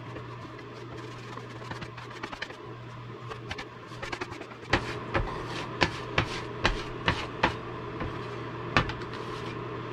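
Hand trowel spreading floor adhesive on a plywood subfloor: scraping with light ticks, then from about halfway in a run of sharp clicks and knocks as the trowel works. A steady low hum runs underneath.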